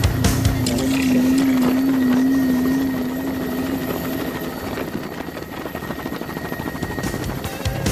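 Helicopter in flight, heard from inside the open-door cabin: the rotors beat in fast, even pulses over heavy wind and engine noise. A wavering hum stands out over the first few seconds.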